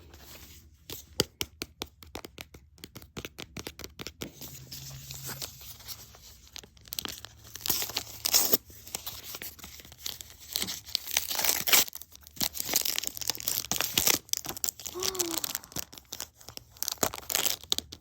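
Small plastic blind-bag packet being torn open and its wrapper crinkled and rustled, in irregular bursts with many small clicks, loudest about halfway through.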